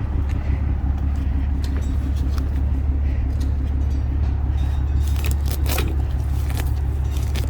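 A steady low rumble like a motor or engine running, with a few short rustles about five to six seconds in.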